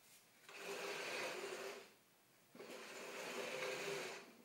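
Wooden folding step stool being folded, its parts sliding and scraping against each other and the floor in two long scrapes of about a second and a half each.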